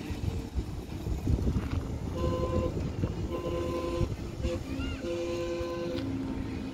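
Miniature railway locomotive's horn sounding in several blasts starting about two seconds in, the fourth one longer. A lower steady note follows near the end, over a low running rumble.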